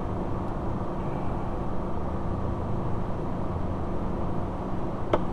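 Steady low rumble and hiss of background noise, with one sharp click near the end.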